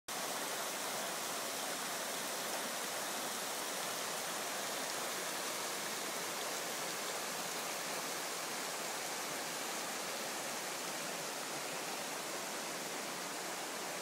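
Shallow mountain river running over rocks, a steady rushing of water.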